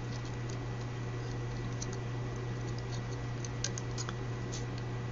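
A few light, scattered clicks and taps over a steady electrical hum and a faint steady high-pitched tone.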